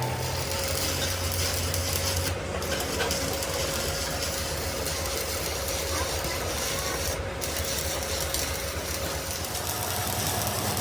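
Continuous rasping scrape of a metal gearbox part being worked by hand or tool, with a faint steady hum underneath.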